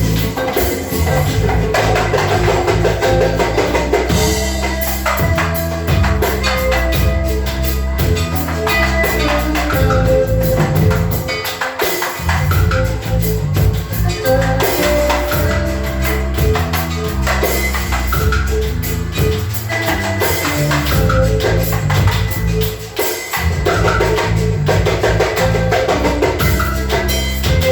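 Music with drums, percussion and a bass line moving in steps, dipping briefly twice.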